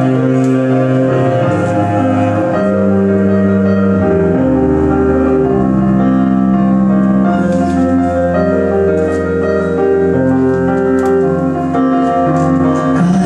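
Piano sound from a Nord Stage keyboard with a bowed cello playing together, an instrumental passage with long held low cello notes under the piano chords.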